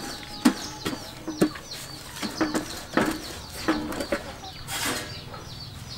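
Chickens clucking in short separate notes, with small birds chirping high above them. There is a brief rustling burst about five seconds in.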